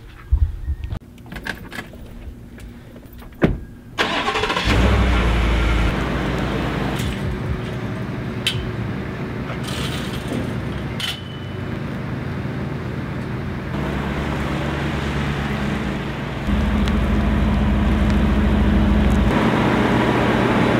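Pickup truck engine starting about four seconds in, then running steadily, growing louder near the end as the truck pulls forward. A few sharp metal clinks from a chain-link gate being opened sound over it midway.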